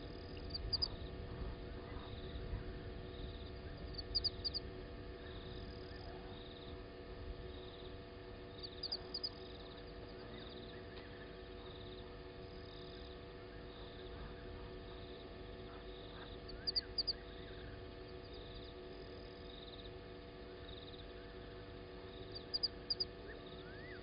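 Faint night-time bush chorus of small calling animals. A soft high pulse repeats about once a second, and every few seconds comes a quick high triple chirp, over a steady electrical hum.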